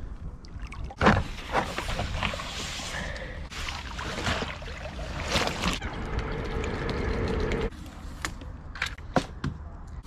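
Dry reed stems rustling and crackling, with water splashing, as a litter picker pokes and drags through a reed bed at the water's edge. The rustling comes and goes in stretches and drops away about three-quarters of the way through, leaving a few scattered clicks.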